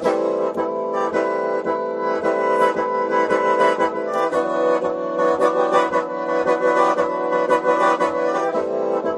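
Khene, the Lao bamboo free-reed mouth organ, playing several notes at once: a melody over held drone tones, pulsed in a quick, steady rhythm.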